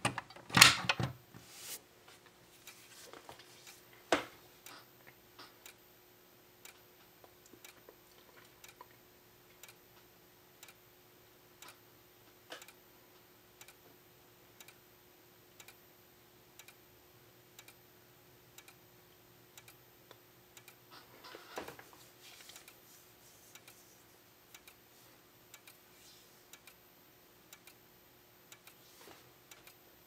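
A Fire-Lite BG12 pull station's handle is pulled with a clack about a second in, with a sharp knock a few seconds later. Then two System Sensor SpectrAlert Advance speaker strobes flash with a light tick about once a second over a faint steady high whine.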